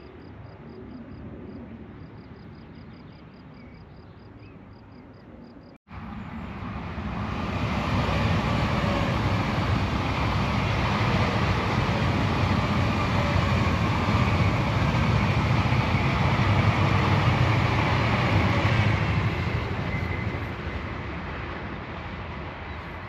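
An electric train passing close by: a steady rush of wheels and air with a low rumble, building over about two seconds, holding, then fading near the end. It starts about six seconds in, after faint background with a fast high ticking.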